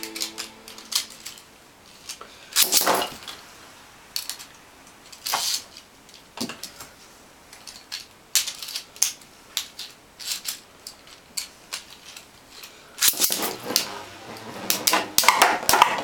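Plastic Beyblade tops clicking and clacking against each other and the stadium, with single sharp knocks every second or so, then a denser run of rattling clatter in the last few seconds.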